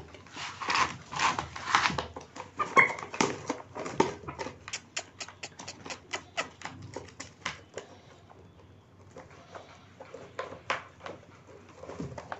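Chickens pecking rice feed from a plastic tray: a fast, irregular run of sharp taps that thins out after about eight seconds.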